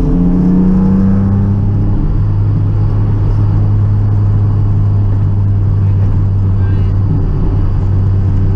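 Rally car's engine heard from inside the cabin while driving, its pitch climbing briefly in the first second and then holding a steady drone.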